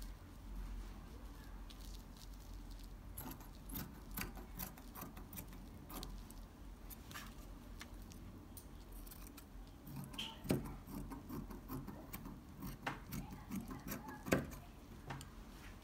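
Satin and lace fabric handled on a plastic-covered table: soft rustling and crinkling with scattered sharp clicks, the loudest about ten and fourteen seconds in, with the metal clicks of sewing scissors being picked up near the end.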